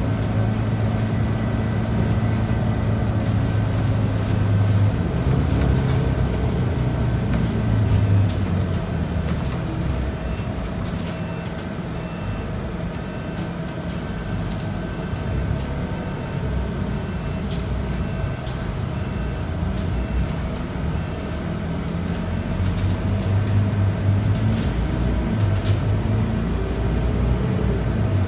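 Scania DC9 9-litre six-cylinder diesel of a Scania K94UB bus with a ZF automatic gearbox, heard from inside the bus as it drives: the engine pulls steadily, eases off in the middle as the bus slows for a turn, and pulls harder again near the end.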